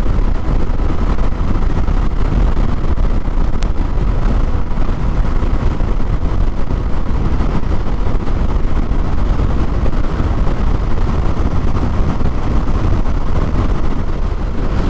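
Yamaha MT-07 motorcycle cruising steadily in sixth gear at about 65 mph: a steady rush of wind and road noise over the drone of its parallel-twin engine.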